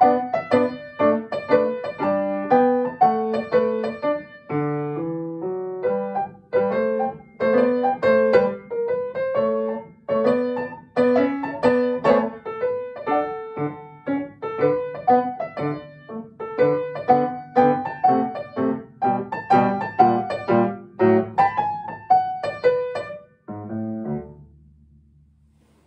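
Upright piano played solo: a brisk run of separate notes, ending near the end on a low chord that is held briefly and dies away.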